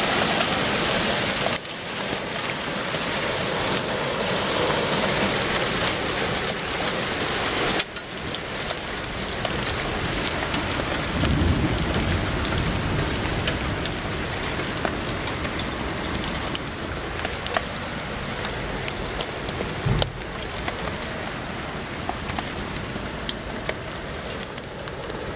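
Hail and heavy rain coming down hard: a dense steady hiss full of sharp ticks of hailstones striking surfaces. A car passes through the wet street about eleven seconds in, and there is a single thump near twenty seconds.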